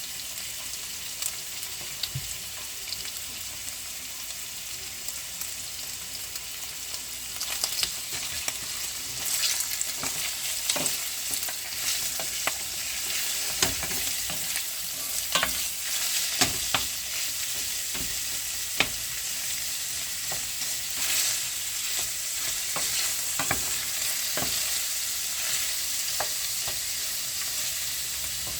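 Food sizzling in a hot pan while it is stirred, with a utensil knocking and scraping against the pan. The sizzle grows louder about a quarter of the way in, and the knocks come thickest in the middle.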